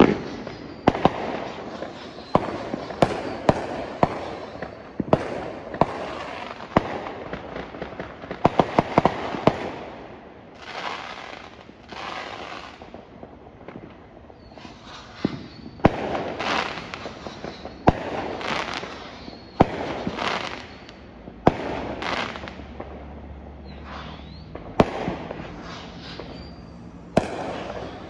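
Aerial fireworks display: shells bursting in a steady, irregular string of bangs, several a second at times, each trailing off in a rolling echo.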